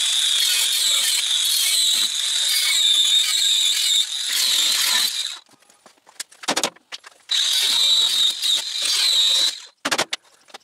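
Power tool, an angle grinder by the look of it, cutting through the steel weld that joins the subframe to the chassis. It makes a high, steady, screeching cut that runs about five seconds, stops, and starts again for a couple of seconds, with a few sharp metal knocks in the pause and at the end.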